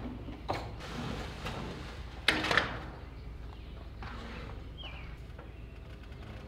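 Steel standing seam roof panel sliding and knocking against a metal sheet-metal bending brake as it is fed in. The loudest sound is a sharp metallic clank a little over two seconds in.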